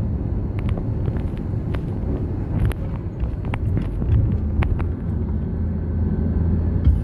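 Car driving, a steady low road-and-engine rumble with scattered light clicks.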